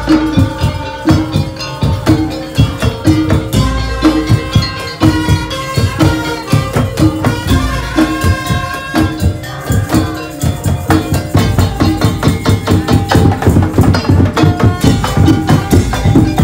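Madurese dhaul (tong-tong) percussion ensemble playing: a fast, driving beat of drums and struck percussion under a repeating pitched melody. The drumming gets busier about two-thirds of the way through.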